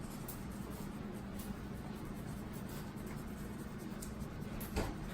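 Garlic salt being shaken from a shaker onto fish fillets, a faint light scratching over a steady low hum, with one short knock near the end.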